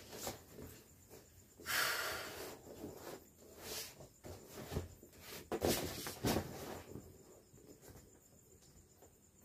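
Air hissing out of an inflatable vinyl chair in several rushes as it is pressed down by hand, with the vinyl rubbing and crinkling in between; the loudest rush comes about two seconds in.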